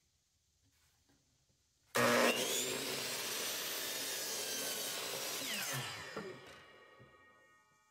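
Miter saw starting suddenly about two seconds in and cutting through a thick wooden board, then spinning down after the cut, its whine falling in pitch and fading near the end.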